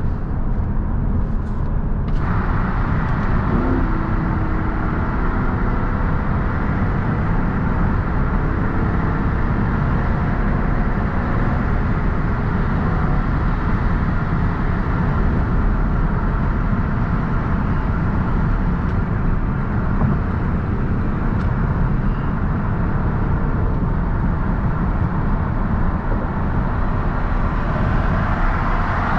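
Lexus LC500's naturally aspirated 5.0-litre V8 running at a steady speed, mixed with road and tyre noise, heard from inside the cabin.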